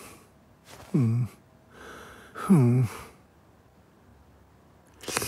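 Cartoon character's wordless vocal sounds: two short grunts that fall in pitch, about a second in and again about two and a half seconds in, with a breathy sound between them and a short hiss near the end.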